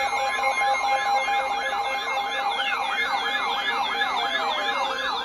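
Electronic emergency-alert siren tone warbling rapidly, about four sweeps a second, over a steady alert tone. A few tones slide downward in pitch during the second half.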